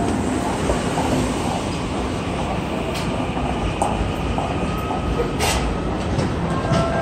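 Busy subway station during the rush hour: a steady low rumble of station noise and a walking crowd, with a few sharp clicks of footsteps.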